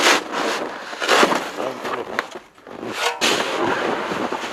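Snow shovel scraping and pushing snow off a roof in several separate strokes, each a short rough scrape.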